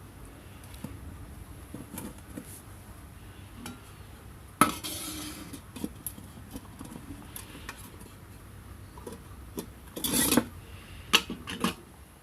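Metal parts of a homemade wood stove clinking and knocking as they are handled, with one sharp knock about halfway and a run of clanks near the end.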